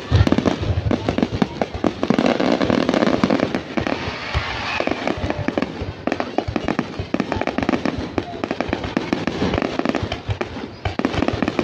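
Fireworks display: aerial shells bursting with a dense, continuous crackling and popping, many sharp reports overlapping throughout.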